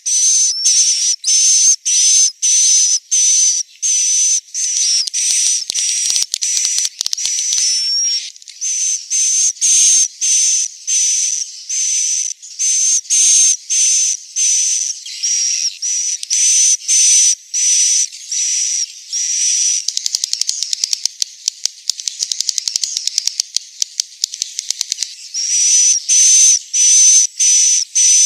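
Swiftlet roosting ('inap') call: a long string of short, hissy, high chirps, about two a second, broken for several seconds past the middle by a fast run of clicking twitters. This is the kind of call played in swiftlet houses to draw the birds in to roost.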